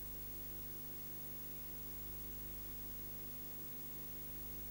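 Steady low electrical hum with an even hiss over it: the background noise of an old analogue video recording, with no other sound.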